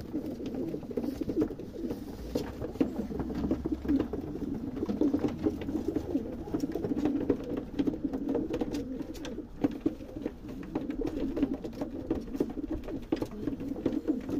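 Many pigeons cooing together in a continuous, overlapping murmur, with scattered sharp clicks and taps throughout.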